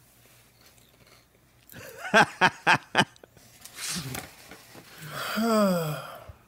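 A man laughing: four short laughs about two seconds in, a wheezy breath, then a long vocal sound falling in pitch near the end.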